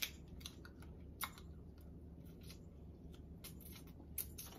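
Faint clicks and smacks of eating crab: chewing snow crab meat and handling the crab leg pieces, a dozen or so short, scattered clicks, the sharpest near the start and about a second in.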